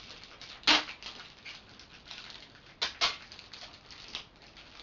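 Adhesive tape being handled and pressed onto a chain of plastic bottles: continuous crackling and rustling with a few short, sharp rasps of tape pulling, the loudest about a second in.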